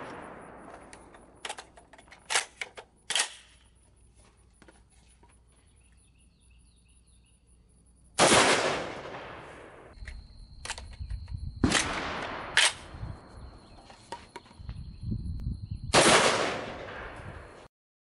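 PTR-91 rifle (an HK91-pattern roller-delayed 7.62×51 battle rifle) fired during its break-in. A few light metallic clacks of the action being handled come first. Two very loud single shots about eight seconds apart each ring out with a long echo, and smaller sharp cracks fall between them.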